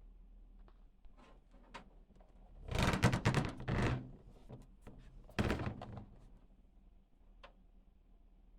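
Handling noises: a cluster of knocks and rustles about three seconds in, then a single sharper thunk about five and a half seconds in, with a few faint clicks between.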